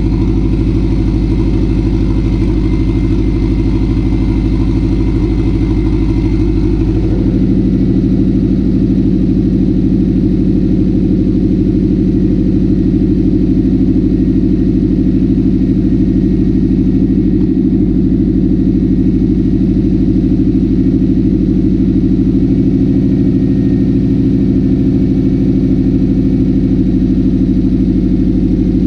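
Turbocharged Subaru flat-four of a Factory Five 818 kit car idling steadily and loudly with no muffler fitted, its exhaust open at or near the turbo outlet. The engine note shifts slightly about seven seconds in.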